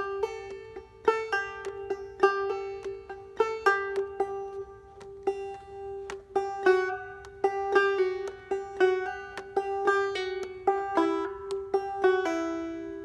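Five-string banjo played clawhammer style at a slow pace: a run of plucked notes with hammer-ons and pull-offs up the neck on the first string, over a steady high drone note. The last notes ring out and fade near the end.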